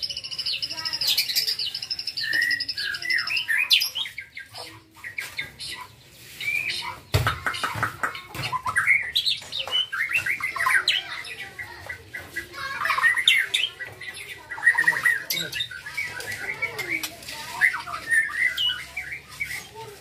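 Young white-rumped shama singing a fast, varied song: a rapid high trill in the first few seconds, then a running string of quick whistles, chirps and harsher squawky notes. A single short thump about seven seconds in.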